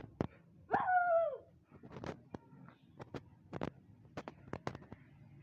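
A Labrador puppy gives one whine that falls in pitch, under a second long, about a second in, amid scattered sharp clicks and taps.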